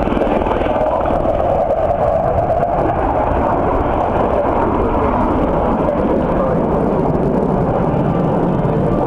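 Loud, steady engine noise from military aircraft, with a band in the sound that drifts up and then down in pitch during the first few seconds.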